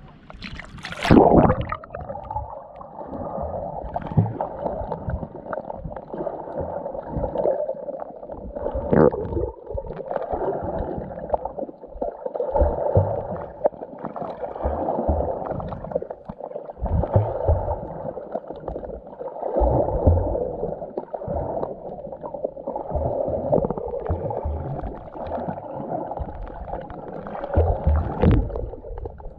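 Muffled underwater water noise and bubbling heard through a submerged camera while snorkeling, with a loud splash about a second in as it goes under.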